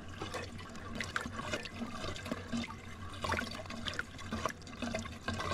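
Water running into a sink where crappie fillets are soaking, with small splashes and wet clicks as the fillets are handled in it.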